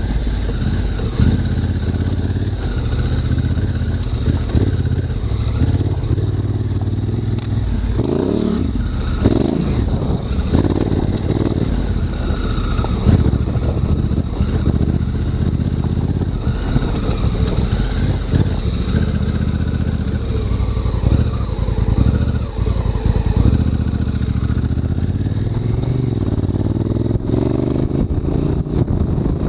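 Honda Africa Twin CRF1000L's parallel-twin engine running under way, its pitch rising and falling with the throttle and climbing steadily near the end, with scattered knocks and rattles from the bike over rough ground.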